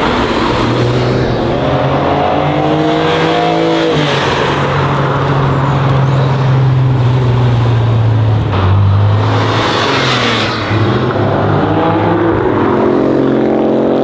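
Car engines running loud with a deep steady drone. Engine revs rise twice, about one to four seconds in and again near the end.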